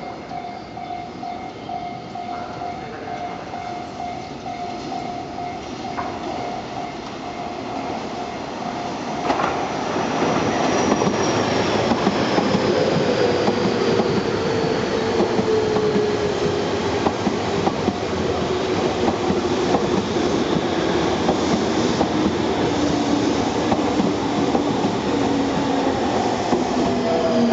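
A level crossing warning bell rings steadily. About nine seconds in, a Tobu 30000 series electric train reaches the crossing and passes at speed, its wheels and rails loud, with a motor whine that slowly falls in pitch.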